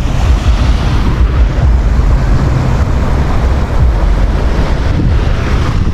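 Wind buffeting the microphone outdoors: a loud, steady rumbling roar.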